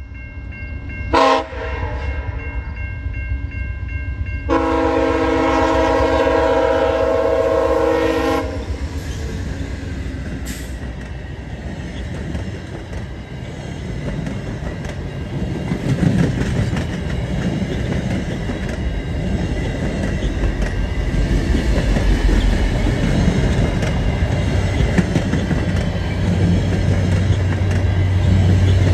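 VIA Rail passenger train passing close by at rail level. The locomotive's air horn gives a short blast about a second in and a long blast from about four to eight seconds, then the cars rumble past with their wheels clattering on the rails.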